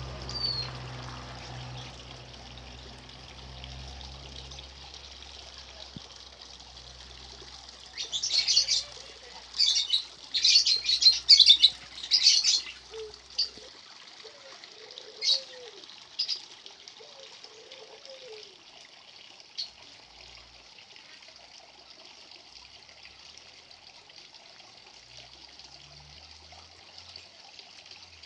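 Birds calling: a loud flurry of rapid chirps for about five seconds, then a few single chirps and some soft low rising-and-falling calls, over a steady rushing hiss.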